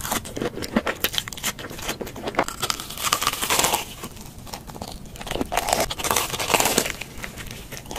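Close-miked crunching of a fried, red crumb-coated corn dog being bitten and chewed: dense crackling crunches of the crispy crust, coming in clusters.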